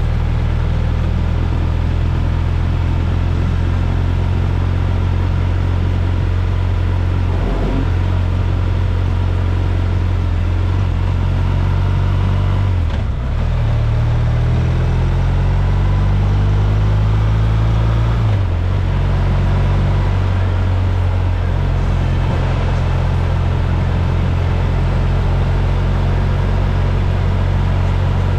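A motor vehicle's engine running with a steady low drone, its pitch shifting a few times.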